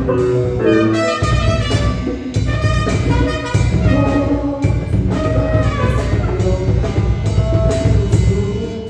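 Live cumbia band playing, with a pitched melody line over heavy bass and a steady drum beat.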